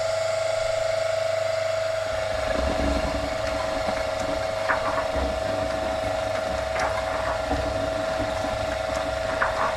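Concrete mixer's new single-phase electric motor starting up and running steadily, driving the drum through belts and gears, with a steady whining hum and a few light clicks about every two to three seconds as the drum turns.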